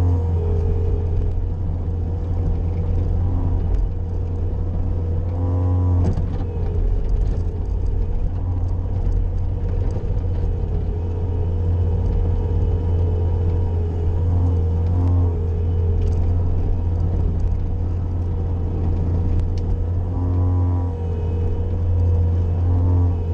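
Bobcat skid-steer loader's diesel engine running steadily while plowing snow, with a steady whine above the low engine hum. A few brief pitched sounds come through about six seconds in and again near the end.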